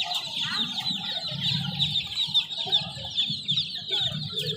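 A flock of baby chicks peeping continuously, many short high-pitched falling peeps overlapping, with some lower clucking calls mixed in.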